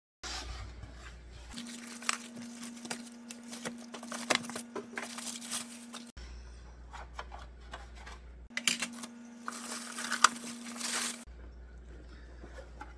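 Plastic packaging bag rustling and crinkling as a grow-light panel and base are unwrapped and handled, with scattered light knocks and clicks.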